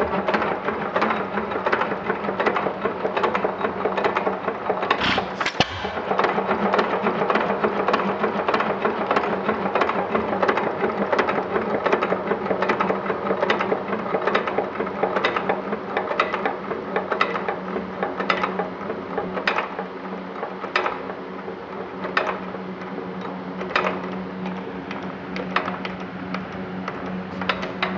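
1919 Economy 2½ hp Model E hit-and-miss engine running, with a rapid mechanical clatter from its exposed valve gear and governor and sharper beats about every second or two in the second half. It is running well, which the owner credits to clearing the carbon that had kept the exhaust valve from seating.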